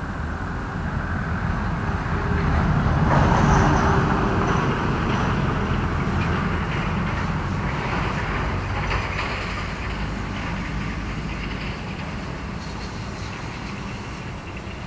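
A passing vehicle, building to its loudest about three and a half seconds in and then slowly fading away.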